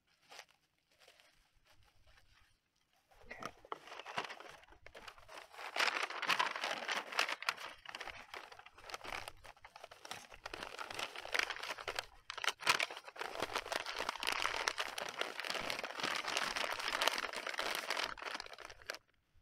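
Bubble wrap and a brown paper sleeve crinkling and rustling as a knife is wrapped back up and pushed into the paper, with a few sharp crackles. It starts about three seconds in and stops just before the end.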